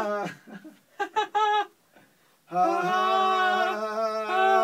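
A man's voice singing long held notes without accompaniment, with a short run of quick sung syllables in between, as a backing-vocal line in a small studio vocal booth.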